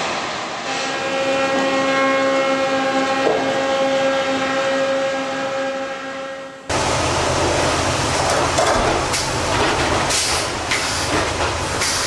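A steady droning machine hum at one constant pitch, cut off suddenly about two-thirds of the way in by louder sawmill machinery running, a rumbling clatter with scattered knocks.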